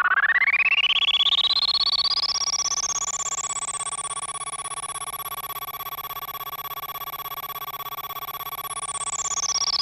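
Synthesized electronic wave sound effect: a tone sweeps steadily upward over about six seconds to a very high pitch, holds there, then sweeps back down near the end, over a steady mid-pitched tone with a fast pulsing flutter.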